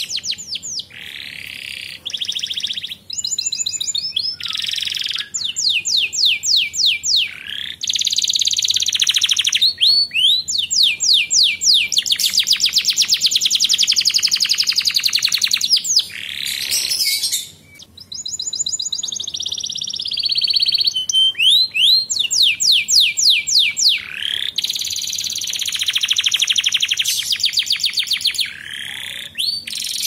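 Domestic canary singing a long, continuous song of fast trills and rolls of rapidly repeated notes, alternating with held whistled notes, with a short break a little past the middle.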